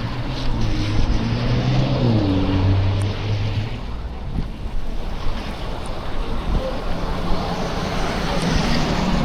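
Passing traffic on a slushy street: tyres hissing through wet snow, with a vehicle engine's low drone for the first few seconds, its pitch dipping about two seconds in. A second swell of tyre hiss builds near the end.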